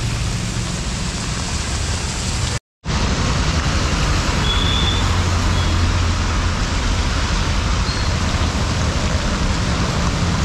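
Steady hiss of traffic on a wet road in the rain for the first few seconds; then, after a cut, the steady rush of turbulent water churning in an open sewer manhole, which is being cleared with a stick and a suction hose.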